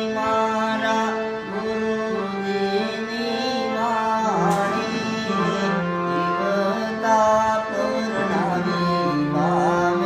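Harmonium playing a devotional bhajan melody in stepped, held notes over a sustained low drone, with hand-drum accompaniment and a sharp strike about halfway through.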